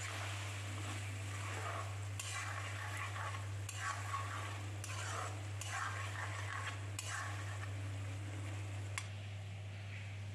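A metal spatula stirring and scraping pork pieces and leafy greens around a steel kadai, with frying sizzle, in repeated scrapes through the middle and easing off after about seven seconds. A steady low hum runs underneath.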